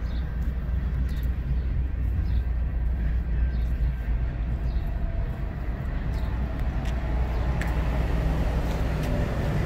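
A steady low outdoor rumble, with light scuffing footsteps on a gritty asphalt alley.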